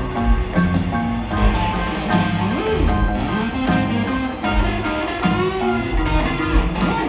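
Live rock band playing an instrumental passage between vocal lines, with electric guitar over bass and drums, including regular cymbal hits, recorded from within the crowd.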